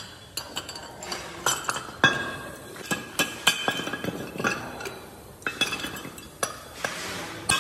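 Freshly cast aluminium motorcycle wheel hubs being struck with a hammer and knocked on a steel block to break away the casting runners: irregular sharp metallic clinks with ringing, the loudest about two seconds in, as hubs and aluminium scrap knock together.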